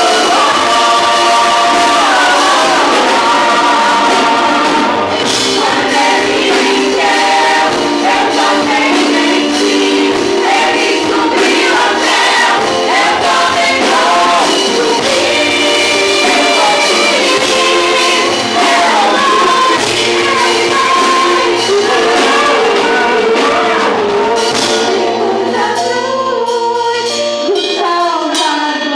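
A worship group singing a gospel song live, several voices over instrumental backing.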